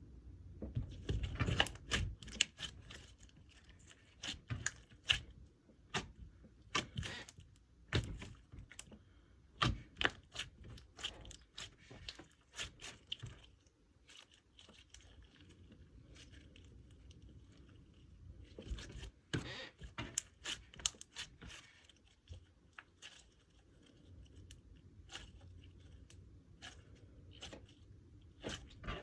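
Hands kneading and stretching slime, making irregular sticky clicks and pops, with quieter spells in between.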